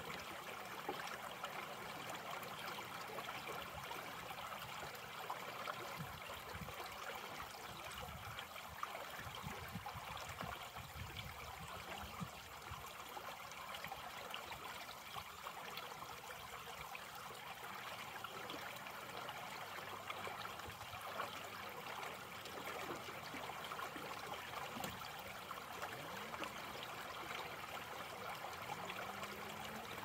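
Shallow creek trickling and babbling steadily over a low step of stones and ice.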